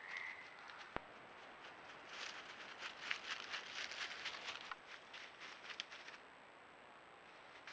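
Faint crackling and rustling in dry forest leaf litter, as of an animal moving through it, for a couple of seconds in the middle, with a few scattered ticks after. A single click comes about a second in, over a faint steady high whine.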